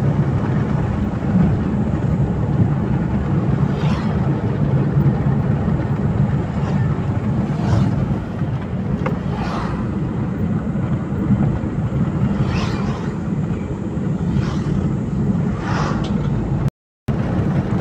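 Inside a moving car's cabin: a steady drone of engine and tyre noise at road speed, with a few brief swells of noise. The sound cuts out completely for a moment about a second before the end.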